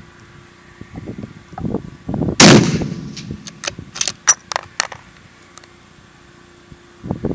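A single rifle shot from a 7mm-08 bolt-action rifle, a sharp crack with a long rumbling echo trailing off. It is followed about a second later by several quick sharp clicks as the bolt is worked.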